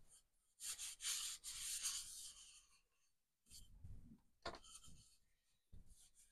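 Faint rubbing of a cloth rag over an oiled wooden hammer handle, wiping off excess hard wax oil, followed by a few light knocks as the hammer is turned and handled.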